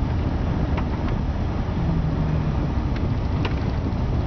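Car driving, heard from inside the cabin: a steady low rumble of road and engine noise. A short low hum comes in about two seconds in.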